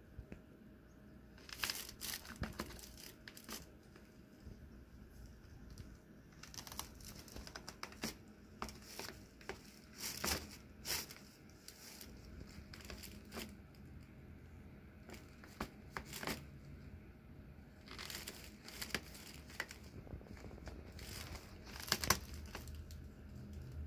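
Blue nylon cat tunnel crinkling and rustling in irregular bursts as a cat moves in and against it.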